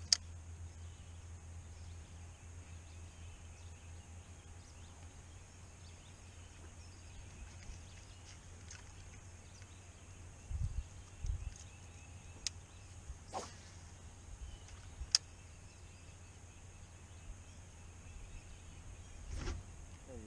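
Quiet fishing-boat ambience: a low steady hum under a faint high-pitched drone, with a few sharp clicks and soft knocks through it, the loudest click just after the start.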